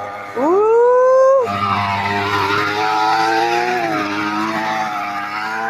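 An engine revving up sharply for about a second, then running on at a steady, slightly wavering pitch.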